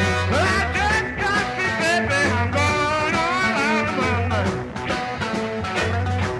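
Live band recording of a blues-rock number: a steady bass line pulsing under a lead melody that bends and wavers in pitch.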